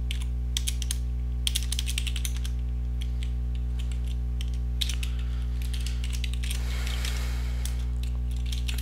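Computer keyboard typing in short bursts of keystroke clicks, over a steady low electrical hum. There is a brief soft rush of noise about two-thirds of the way through.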